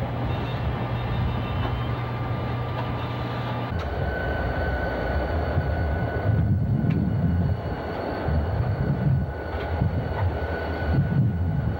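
Freight train running past a grade crossing with a steady low hum; about four seconds in the sound cuts to CSX diesel-electric locomotives rumbling past, their low engine drone pulsing, with a thin steady whine above it.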